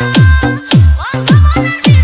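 DJ dance remix music with a deep booming kick drum that drops in pitch on each hit, four hits about half a second apart, over sustained synth tones.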